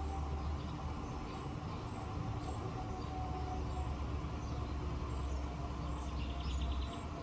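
Small birds chirping briefly and high, over a steady low rumble, with a short buzzy trill of a bird about six seconds in.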